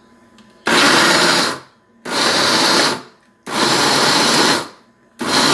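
Countertop blender running in short pulses, three full bursts of about a second each with the fourth starting near the end, churning a thick load of cooked rice, eggs and milk into batter.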